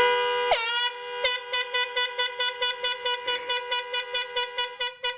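Air horn blasting: one long blast of about a second, its pitch dipping briefly about half a second in, then a fast run of short blasts, about five a second, that stops just before the end.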